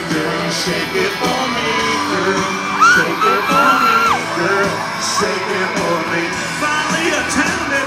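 Live country band playing with singing, mixed with crowd yells and whoops.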